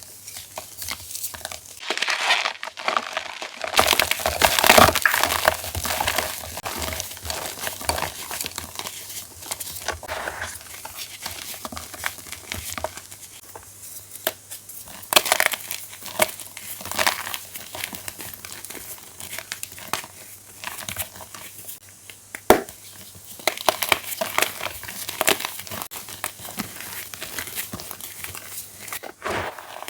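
Fresh reformed plain gym chalk blocks being crushed, crumbling and crackling with dense small clicks and a few louder cracks.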